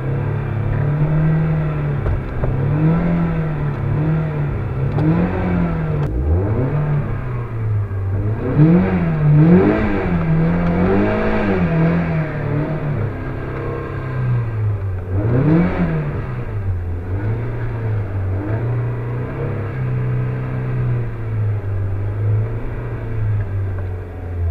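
Mazda Miata NB's four-cylinder engine, heard from inside the cabin, revving up and down in repeated swings as the car is driven hard, with a brief drop about six seconds in. For the last several seconds it settles into a steadier, lower note.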